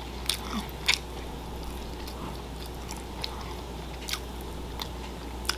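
Close-miked chewing of a mouthful of meat, with wet mouth clicks and smacks; the sharpest come about a third of a second in, at about one second, just after four seconds and near the end.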